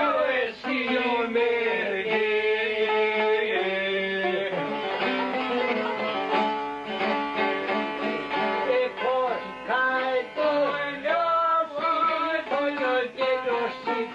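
Folk singing accompanied by a plucked string instrument: a wavering, ornamented vocal line over a steady strummed accompaniment.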